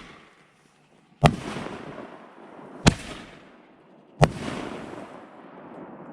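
Aerial fireworks bursting: three sharp bangs about a second and a half apart, the first and last each trailing off over a second or so.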